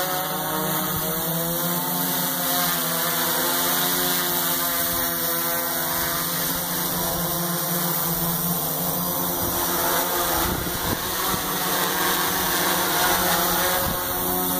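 Electric multirotor drone hovering: a steady whir of its propellers and motors, pitch wavering slightly as the motors adjust.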